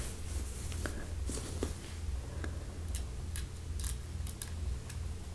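Faint, scattered light clicks and taps of handling as a small hex key is fitted into the blade retention screw of a 3D-printed plastic lightsaber tsuba, over a low steady hum.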